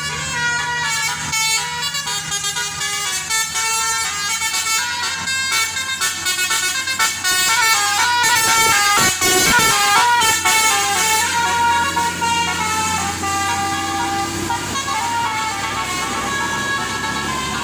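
Bus 'telolet' Basuri multi-tone horns playing a quick tune of rapidly changing notes over a running bus engine, loudest about halfway through.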